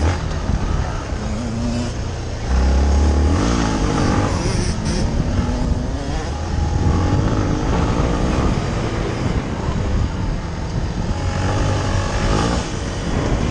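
Yamaha TT-R250's single-cylinder four-stroke engine being ridden hard off-road, its revs rising and falling with the throttle through the corners. The throttle opens sharply about two and a half seconds in.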